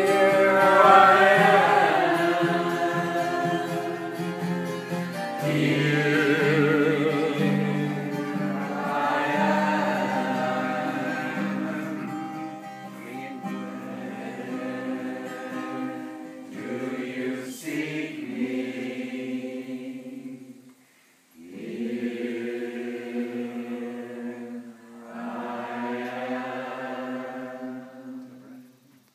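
A group of men and women singing a chant together, accompanied by strummed acoustic guitar. The sung phrases are broken by short pauses, one about two-thirds of the way in and one near the end.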